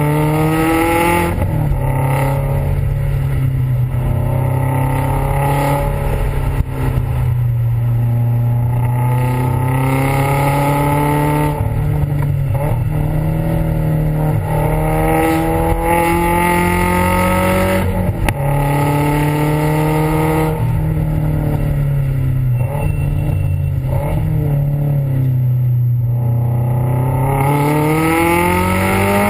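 Subaru WRX STI's turbocharged 2.5-litre flat-four heard right at the exhaust tip under hard track driving: the engine pitch climbs again and again and drops back at each shift or lift, then rises once more.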